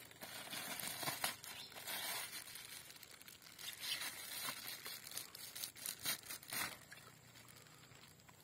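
Thin plastic bag crinkling and rustling in the hands as tiger shrimp fry are tipped out of it into pond water, with a few sharper crackles; it goes quieter near the end.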